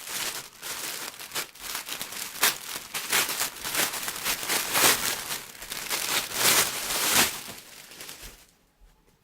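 Packaging being handled and unwrapped, crinkling and rustling in irregular bursts that die away about a second before the end.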